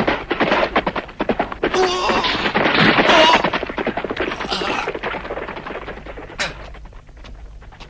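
A rapid, dense series of sharp cracks and clatter, loudest in the first half, thinning out and fading after about five seconds.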